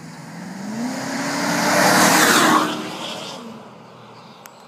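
2004 Ford F-250's 5.4-litre V8 exhaust through a Flowmaster 40 Series muffler, cruising and then revving up as the truck is put under throttle about a second in. It passes by, loudest about two seconds in, and fades as it goes away.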